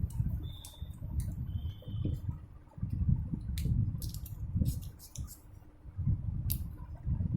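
Scattered light clicks and crinkles of hands handling folded insulating paper in an electric motor's stator, over low rumbling handling noise.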